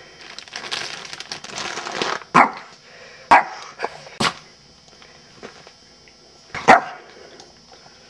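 Small black poodle barking: four short, sharp barks about a second apart, with a longer pause before the last and loudest, after a second or so of rustling. Protest barks at having its prized item taken away.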